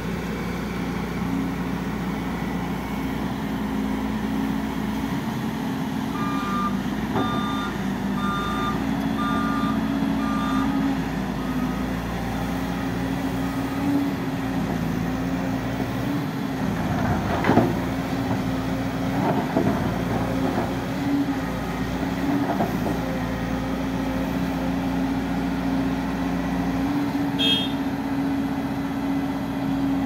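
Volvo crawler excavator's diesel engine running steadily while it works. From about six seconds in, its travel alarm beeps in an even series, a little more than one beep a second, for about five seconds. A loud knock comes about halfway through.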